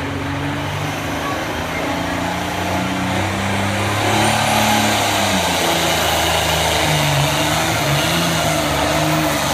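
Diesel pulling tractor's engine revving hard under full load as it pulls a weight sled, getting louder about four seconds in.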